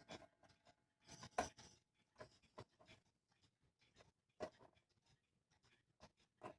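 Faint, irregular small clicks and light rubbing as the cuckoo clock's works are handled and adjusted, the strongest click about a second and a half in and another about four and a half seconds in.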